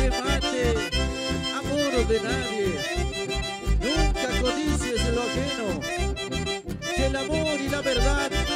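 Instrumental stretch of live folk dance music in chamamé style, an accordion carrying the melody over a steady bass beat.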